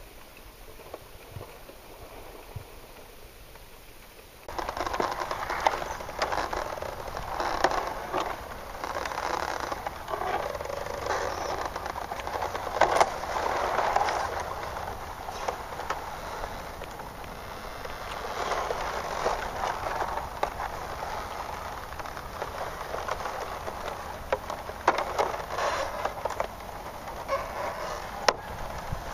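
Water noise picked up by a submerged camera: faint hiss, then about four and a half seconds in a sudden switch to a louder, muffled crackling and sloshing with scattered clicks.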